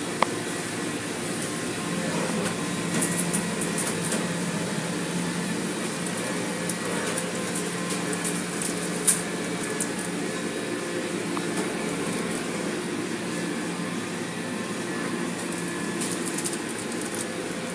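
Automatic car wash heard from inside the car: a steady machinery hum with water and foam spraying against the windshield. A few sharp ticks of spray hitting the glass come through, the loudest about nine seconds in.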